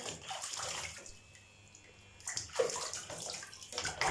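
Water splashing and sloshing in a small plastic basin as a cat is washed in it. It comes in bouts, with a quieter stretch in the middle and louder splashing in the second half.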